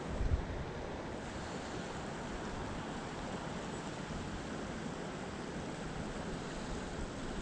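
Steady rushing of creek water mixed with wind on the microphone, with a brief low buffet just after the start.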